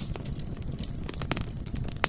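Bonfire burning with irregular sharp crackles and pops over a steady low rumble of the flames.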